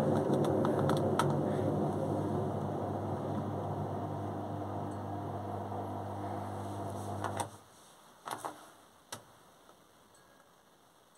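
Beko front-loading washing machine running with a steady mechanical hum that slowly fades and then cuts off sharply about seven and a half seconds in, followed by a few sharp clicks.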